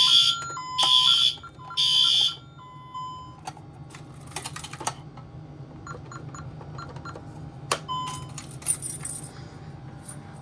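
Fire alarm horns sounding three short blasts about a second apart, over an alarm keypad sounder stepping back and forth between two tones; both stop about two and a half seconds in. Then come clicks and keys jangling, with a brief keypad beep about eight seconds in.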